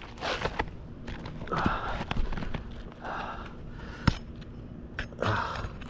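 A run of short gritty scrapes, about one every second and a half, with sharp clicks between them, from work on roof shingles.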